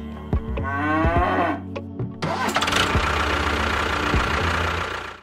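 A cow's moo, one rising call lasting about a second and a half. From about two seconds in, it gives way to a steady rushing, engine-like noise.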